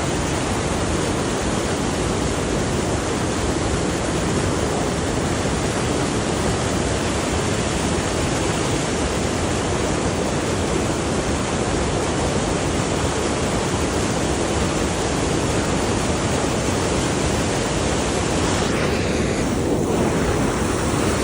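Steady rush of river rapids: loud, even white-water noise with no change.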